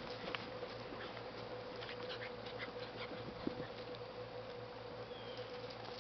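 Dogs and puppies moving about on dirt and grass: scattered light scuffles and ticks over a steady faint hum, with a brief faint squeak about five seconds in.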